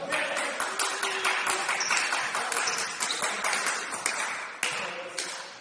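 Basketball game noise in a large gym: a dense clatter of knocks and short high squeaks, the sound of players on the court, with voices underneath, thinning out near the end.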